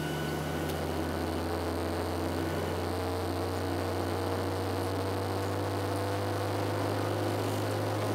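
Cabin drone of a Boeing 737-700's engines at taxi power, heard from a window seat over the wing: a steady low hum with fainter steady tones above it and a soft rushing background.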